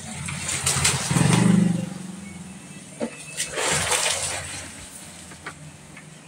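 A motor vehicle's engine swells and fades about a second in, then a second hissing pass a few seconds later, with a few light metallic clicks in between.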